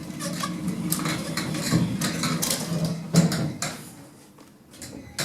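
Passenger lift doors sliding shut with a series of clunks and rattles, the noise dying down after about four seconds and ending with a single click.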